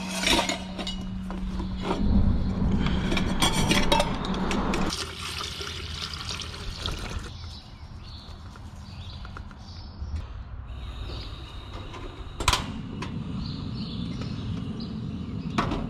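Water poured into a small pot on a two-burner propane camp stove for the first few seconds. About twelve seconds in comes a sharp click as a burner is lit, then the steady low rush of the flame and a second click near the end.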